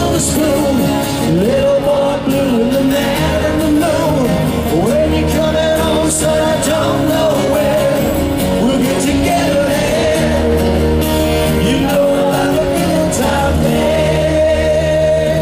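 Live rock band playing loudly through a festival PA, with a long held note over steady bass and drums and sung lines that waver above them. Heard from among the audience.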